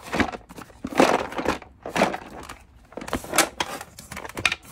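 Hard plastic toy parts being handled and folded together: irregular rustling with sharp clacks and knocks.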